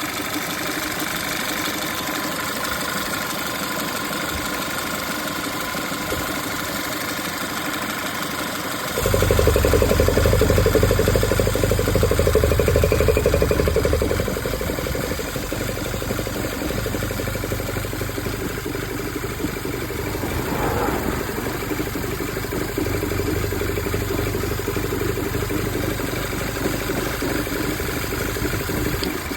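Audi A5 engine running at idle with a rough, uneven low rumble, typical of the misfire that the owner traces to a faulty engine breather. About nine seconds in, the engine sound suddenly gets much louder and deeper. It settles back to a lower, pulsing idle about five seconds later.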